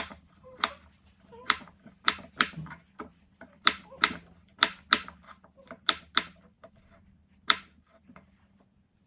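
Kitchen knife cutting raw russet potatoes on a wooden cutting board: sharp, irregular clicks, about one to two a second, as the blade goes through the potato and strikes the board.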